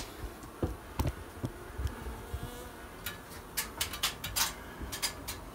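Honey bees buzzing from a colony just opened in a house soffit, with scattered sharp clicks and knocks, most of them in the second half.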